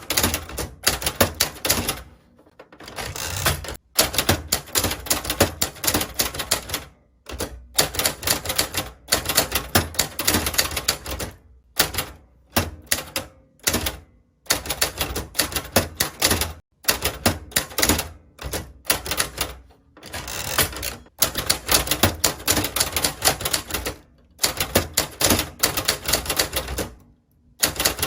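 Typewriter typing: fast runs of sharp keystroke clacks in bursts of a few seconds, separated by brief pauses.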